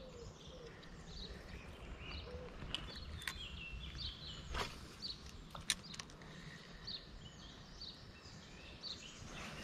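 Quiet outdoor ambience with small birds chirping repeatedly, and a few faint sharp clicks.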